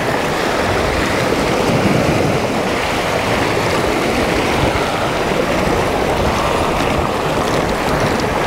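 Sea swells washing and splashing against the rocks of a jetty, mixed with wind on the microphone: a steady, even rushing with no distinct breaks.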